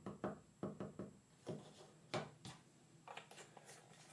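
Faint handling noise as glue is squeezed from a plastic bottle onto a small wooden model part: a string of light, irregular knocks and clicks, with softer clicks near the end.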